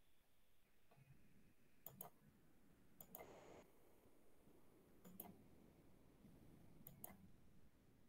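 Near silence broken by four faint, sharp double clicks at irregular intervals: computer mouse buttons being pressed and released.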